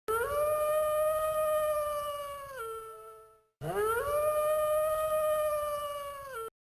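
A canine howl played twice, the same recording repeated: each is one long call that rises quickly, holds a steady pitch for about two seconds, then drops. The first fades out and the second starts about three and a half seconds in and cuts off abruptly.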